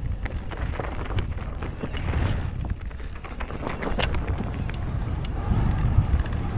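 Wind buffeting the microphone over the rolling rumble of a mountain bike descending a dirt trail, with many quick clicks and rattles from the bike over bumps.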